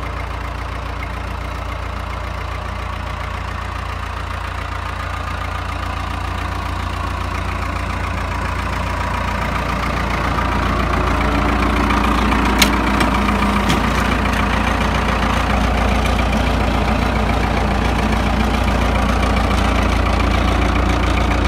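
1995 Case 580 SK Turbo backhoe loader's turbocharged diesel engine idling steadily, growing louder about halfway through. One sharp click comes a little after the halfway point.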